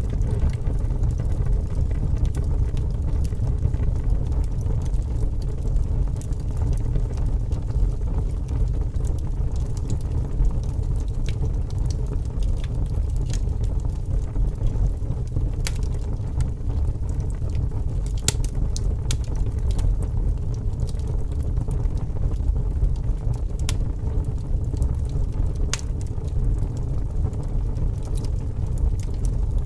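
Wood fire burning in a fireplace: a steady low rumble with scattered sharp crackles and pops, more of them in the second half.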